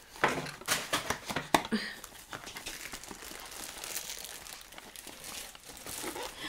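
Packaging crinkling and rustling as an accessory is unwrapped, busiest in the first two seconds, then quieter handling.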